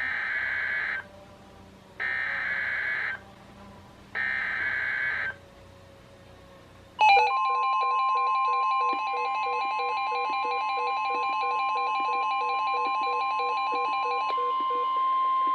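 Emergency Alert System SAME header data: three roughly one-second bursts of digital screech two seconds apart. About seven seconds in, weather radio receivers set off their alert alarms, a mix of pulsing beeps, and the steady 1050 Hz weather radio warning tone joins them about two seconds later and carries on through the end.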